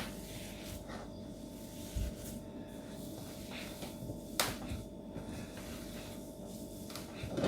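Faint handling sounds of hands mixing squeezed, grated cassava with salt in a plate, with a soft thump about two seconds in and a sharp click a little after four seconds.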